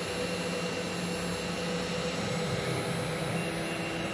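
Spindle motor of a mini five-axis vertical CNC machine running steadily with a few held tones in its drone, as the machine runs a test program on a wooden blank.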